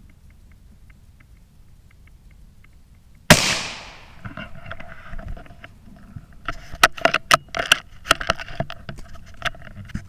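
A single .17 HM2 rimfire rifle shot about a third of the way in, sharp and loud with a short ringing tail, followed by an irregular run of crackles and snaps.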